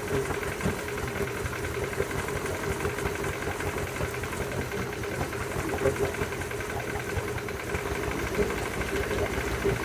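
2000 Yamaha F100 four-stroke outboard running steadily with a rapid, even knocking; the owner can't tell whether it is rod knock or just how this engine sounds.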